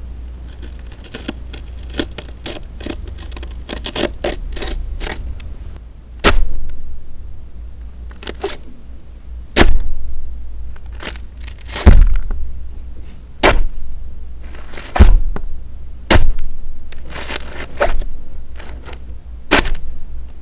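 Foley for shredding flesh: a tool scraping, tearing and stabbing into raw vegetables. Wet crackling and tearing for the first few seconds gives way to a series of sharp stabs, roughly one every one to two seconds, over a low steady hum.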